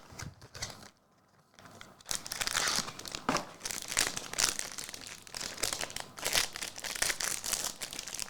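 Trading-card pack wrapper crinkling and tearing as a pack is opened by hand, a dense, irregular crackle that starts about two seconds in after a brief near-silent pause.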